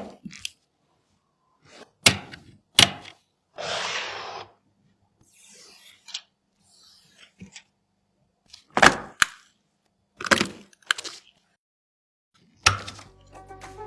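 Sharp clicks and knocks from PC components and their packaging being handled, spaced a second or more apart, with a rustling scrape lasting about a second early on. Music comes in near the end.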